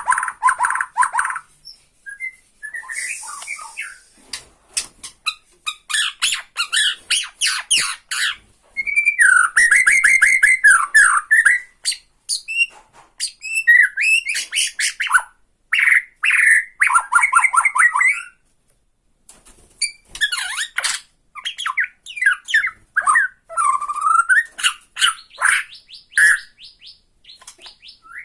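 Bornean white-rumped shama singing short, varied phrases broken up by fast rattling 'tretek' notes, with brief pauses between bursts. This rattling is the call used to provoke rival shamas.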